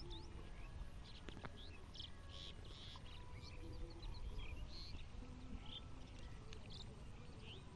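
Small birds calling, with many short high chirps and a few quick trills, over a low steady rumble.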